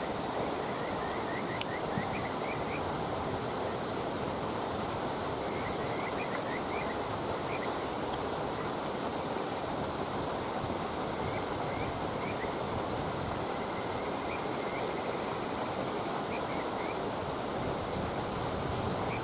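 Campfire burning with a sharp pop about one and a half seconds in and a few faint crackles, over a steady rushing noise like flowing water. Short high chirps come and go in small clusters.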